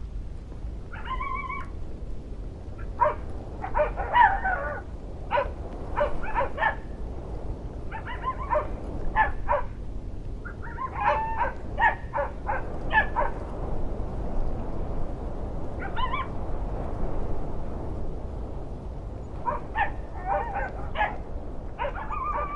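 Short animal calls, dog-like barks or yips, repeated in clusters over a steady low rushing noise.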